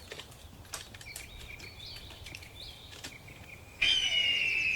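Rainforest ambience with faint chirps and ticks, then, a little under four seconds in, a sudden loud, steady, high-pitched animal call that slides slightly downward and holds.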